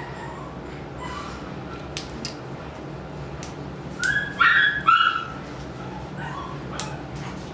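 Poodle puppy yelping: two or three loud, short, high cries about four to five seconds in, with fainter whimpers around them, while its retained puppy canine tooth is being extracted.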